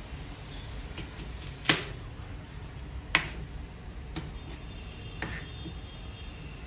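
Kitchen knife cutting a red onion on a plastic cutting board: about five separate knocks of the blade on the board, two of them louder, over a low steady background hum.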